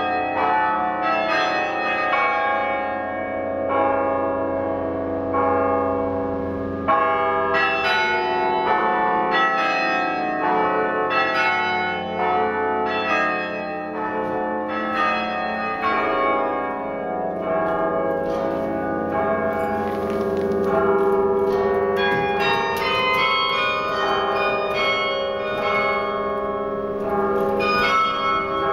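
A 72-bell bronze carillon playing a tune: bells struck one after another and in chords, each note ringing on and overlapping the next.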